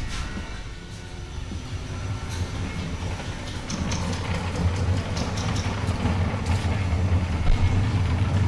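Factory-floor machinery noise: a steady low hum that grows louder about a second in, with scattered clicks and clanks over it.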